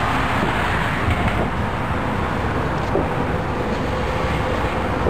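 Small 'Tasmanian Devil' ground-spinner firework burning on pavement, giving a steady hiss as it sprays sparks.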